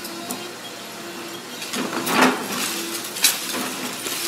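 Doosan tracked excavator's diesel engine running while its bucket tears into a brick and concrete building. Rubble clatters down about two seconds in and again just after three seconds in; these are the loudest moments.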